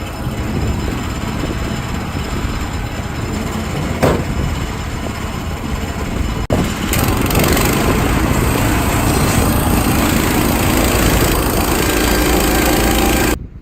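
The gas engine of a Woodland Mills HM130 portable band sawmill running steadily while the mill saws an ash log. After a brief dropout about halfway it is a little louder, and it cuts off abruptly near the end.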